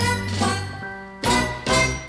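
Closing theme music of a TV variety show ending on two short, loud chords in the second half, the last one dying away at the very end.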